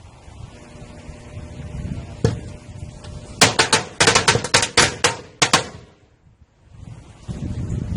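Firecrackers exploding inside a running microwave oven: one sharp bang about two seconds in, then a rapid string of about a dozen bangs over roughly two seconds, over the microwave's steady hum.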